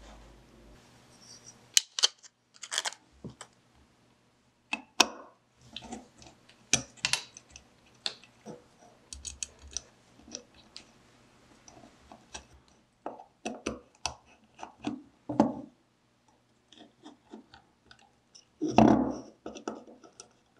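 Small nickel-plated metal parts of an antique telephone being handled and fitted by hand: irregular light clicks and taps of metal on metal. A louder, duller clunk comes near the end.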